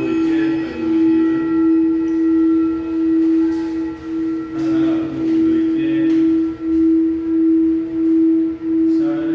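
Tibetan singing bowl sung by a mallet circling its rim: one steady low ringing tone with overtones, swelling and dipping in level about every two-thirds of a second as the mallet goes round.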